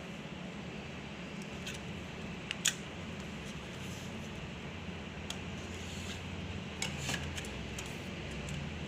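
Steady hum of cooling fans with a handful of short, sharp clicks. The loudest click comes about two and a half seconds in, and a small cluster follows around seven seconds.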